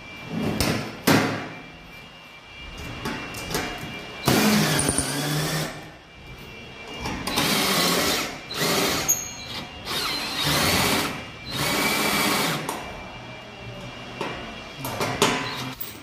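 Cordless drill running in about six short bursts of a second or so, boring into and fastening the galvanized steel sheet of a 90-degree cable tray bend for its bolts, with quieter gaps between.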